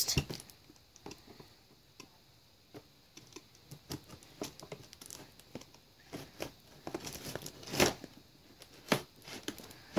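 Scissors snipping and cutting through a cardboard doll box, with scattered crinkling and tearing of the packaging; a louder crunch comes about eight seconds in and another about a second later.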